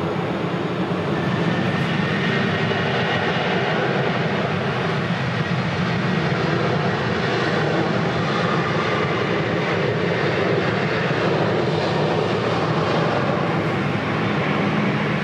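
Jet airliner engines running, a loud, steady rumble that holds throughout.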